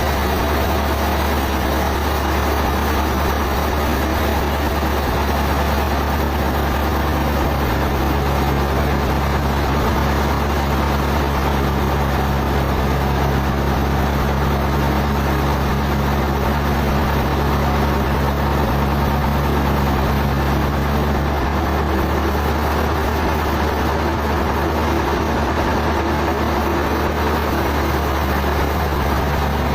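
Sawmill machinery running with a steady, even drone: a low hum with a few held tones that shift slightly twice, and no sharp knocks.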